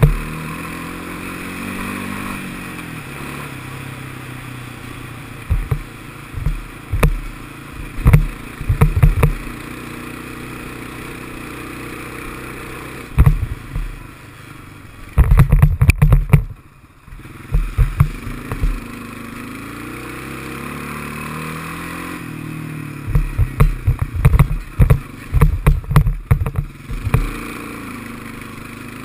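Honda FourTrax ATV's single-cylinder engine running while riding a dirt trail, its pitch rising and falling with the throttle. Clusters of loud low thumps and knocks break in several times.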